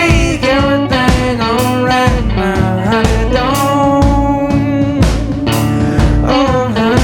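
Background music: a rock-blues song with guitar, steady drum beat and a sung or lead melody line that bends in pitch.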